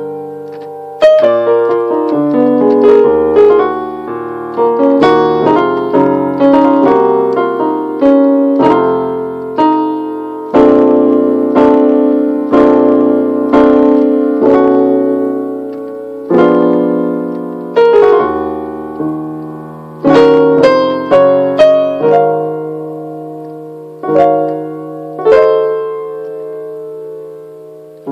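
Keyboard playing a piano sound: slow, worship-style chords struck every second or two over low bass notes, each left to ring and fade. Toward the end the chords come further apart and fade further before the next.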